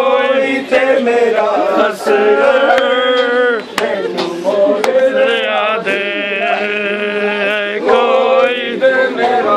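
Male voices chanting a Muharram mourning lament in long, drawn-out phrases with a few short breaks. A few sharp knocks sound through it.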